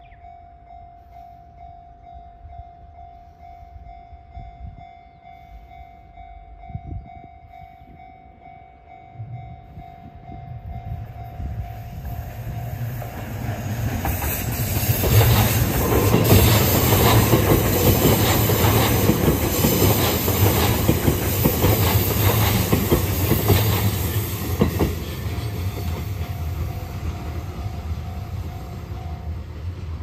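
Japanese level-crossing warning bell ringing as a steady tone while an E257-series limited-express electric train approaches and passes over the crossing. The train is loudest about halfway through and then fades. The bell is heard again afterwards and cuts off just before the end, as the crossing clears.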